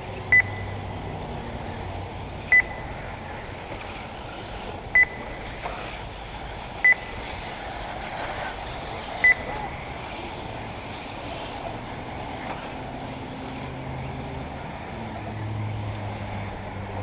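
Short, sharp electronic beeps from the race's lap-timing system, five in the first nine or so seconds at uneven gaps of about two seconds, as RC buggies cross the timing line. Underneath is a steady background of the electric 1/8-scale buggies running on the track.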